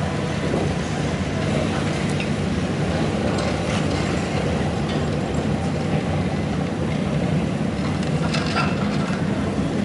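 Old cars' engines running at low speed as the cars roll past one after another: a steady low rumble with a few faint clicks.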